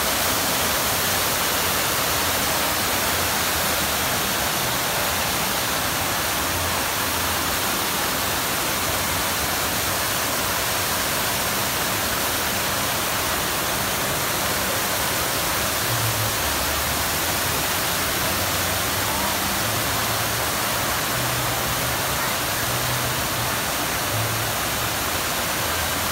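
Fountain water pouring over the rim of a large round basin and splashing into the pool, with bubbler jets; a steady, even rushing hiss.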